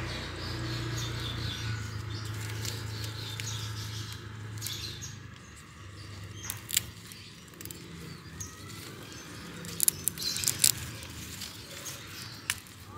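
Pandan leaves rustling and snapping as they are pulled by hand from a potted plant, with sharp cracks about halfway through and again near the end. Faint bird chirps and a low hum that fades after about five seconds sit under it.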